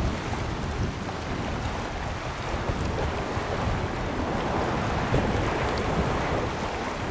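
Wind buffeting the microphone: a steady, gusty rush of noise, heaviest in the low rumble.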